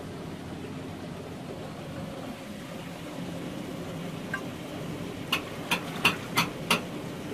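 A faint tap, then five sharp strikes in quick succession, about three a second, of a metal chisel knocking on oyster shells and concrete while oysters are chiselled loose. Steady low background noise underneath.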